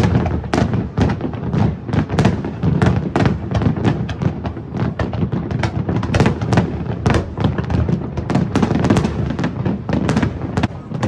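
Large fireworks display in a dense barrage: sharp bangs several times a second, overlapping over a continuous low rumble.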